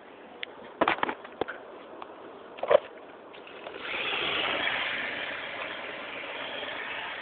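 A small radio-controlled car running past on asphalt, its motor and tyres making a noisy whir that swells about four seconds in and slowly fades. A few sharp knocks come before it.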